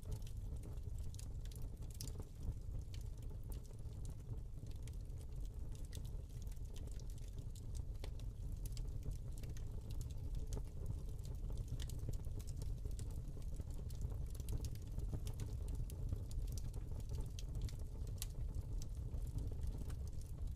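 Hearth fire crackling, with irregular small pops and snaps over a steady low rumble.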